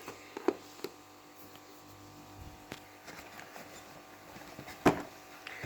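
Gimbal packaging being handled and worked open by hand: faint scraping, with a couple of small clicks about half a second in and a sharper knock near the end.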